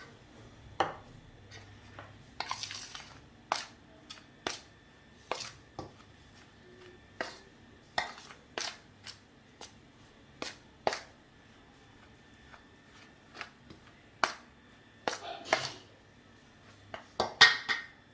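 Irregular sharp knocks and clacks of hands and utensil against a bowl while maize-flour dough is mixed and kneaded with hot water, about one or two strikes a second, with quick clusters near the start and end.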